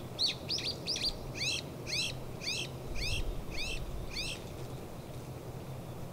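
A songbird calling a run of about ten sharp, arched chirps, quick at first and then about two a second, stopping after about four seconds.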